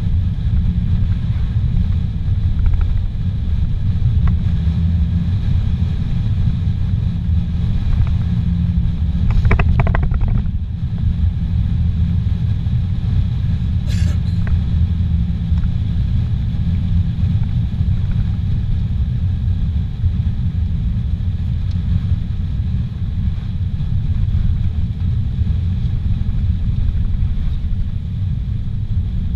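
Car interior noise while driving on a highway: steady engine and tyre rumble, with a brief higher sound about ten seconds in and a single click around fourteen seconds.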